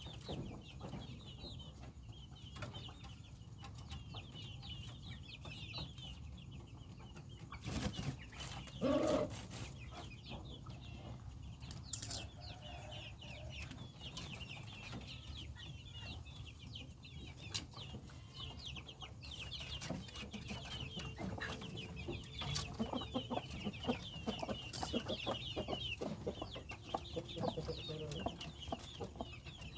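Bangkok (Thai game) chickens clucking, over dense high chirping that runs on throughout. A louder call comes about nine seconds in.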